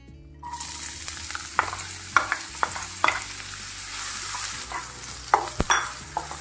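Chopped red onion hitting hot oil in a nonstick wok, sizzling suddenly about half a second in and then frying steadily. A wooden spatula stirs through it, with scattered light knocks against the pan.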